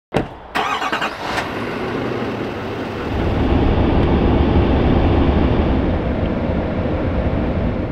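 Pickup truck running, with a few clicks and knocks near the start, then a low rumble that grows louder about three seconds in.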